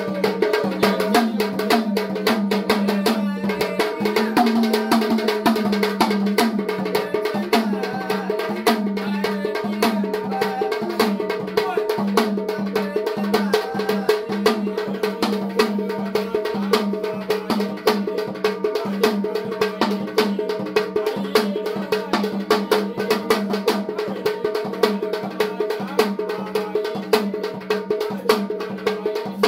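Sambal, the paired Gondhal drum, beaten in a fast, steady rhythm over the constant drone of a tuntuna's single string, with a man singing.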